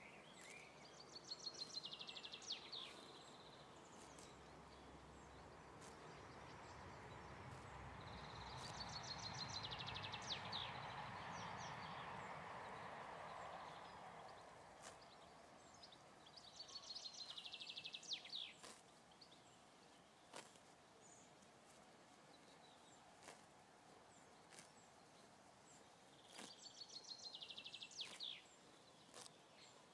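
Quiet outdoor ambience: a small songbird repeats the same short, fast trilled phrase four times, about every eight seconds. A broad swell of rumbling noise rises and fades in the middle. Faint scattered clicks come from a horse tearing at grass as it grazes.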